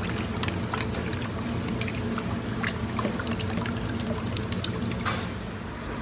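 A pot of crab boil bubbling: a steady liquid rumble with scattered pops and crackles, and a brief louder rush of noise about five seconds in.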